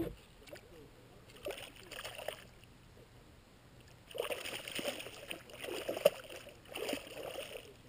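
Water splashing and sloshing at the side of the boat in two bursts, a short one about a second and a half in and a longer one from about four seconds in.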